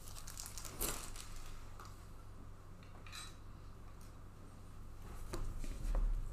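Handling of a plastic trading-card holder on a table: a few separate soft clicks and scrapes, with a dull low thump near the end.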